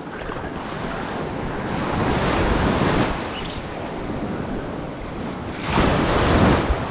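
Small surf breaking and washing up the beach, with wind buffeting the microphone. The wash swells louder twice, about two seconds in and again near the end.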